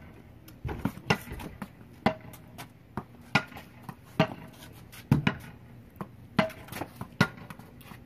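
Paddle tennis rally: a quick, uneven run of sharp clacks, about two a second, as paddles strike the ball and it bounces on a concrete driveway.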